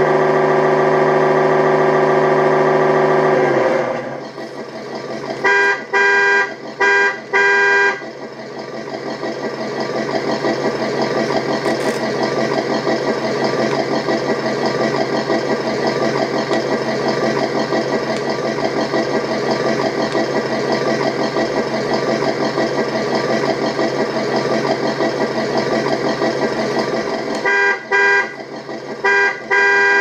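A Tamiya multi-function control unit in an RC Toyota Tundra High Lift, playing simulated truck sounds through its speaker. It opens with a steady tone for about four seconds, then gives three short horn honks, then a simulated engine idling, with three more honks near the end.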